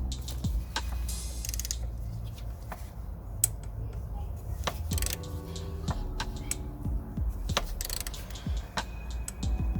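Ratchet wrench clicking in short rapid runs, with scattered knocks of tools on metal, while a 14 mm socket is worked onto the pulley bolts of a Honda S2000's accessory belt tensioner. Quiet background music plays underneath.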